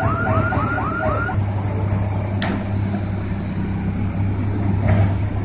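Mobile crane diesel engines running steadily with a low drone that grows stronger about a second and a half in. Over it a warbling alarm repeats quick rising tones, about four a second, and stops at that point. A sharp knock comes about two and a half seconds in, and another near the end.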